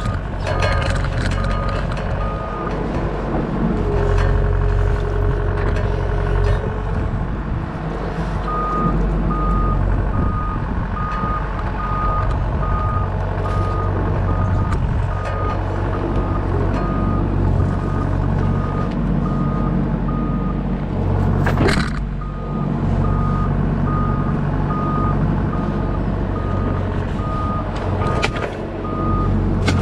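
Doosan DX63 mini excavator's diesel engine running under load while its travel alarm beeps steadily, in runs that stop and restart as the tracks move. A brief rising squeal cuts in about twenty-two seconds in.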